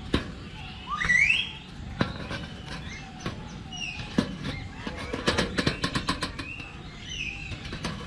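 Hornbill's bill knocking and tapping against the camera in scattered clicks, with a quick run of taps about five seconds in. Short rising bird chirps sound between the taps, the loudest one about a second in.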